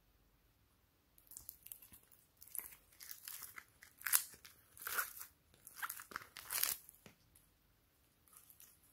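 Small foam beads crunching and crackling as a handful is pressed and squeezed: a run of crackly bursts that starts about a second in and stops about seven seconds in.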